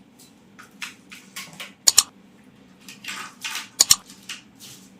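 Small plastic camera gear being handled by hand: short rustles with sharp clicks, two quick double clicks about two seconds apart.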